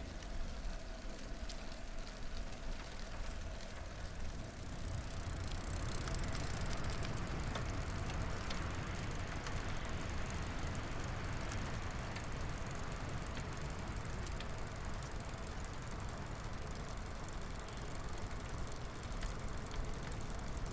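Steady wind and tyre noise of a recumbent trike rolling along a paved trail, with low wind rumble on the microphone. The hiss turns brighter about four seconds in.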